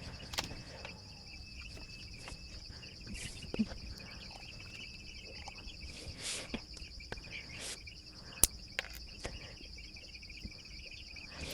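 Steady high-pitched chirring of crickets or other insects, with a few faint sharp clicks and taps.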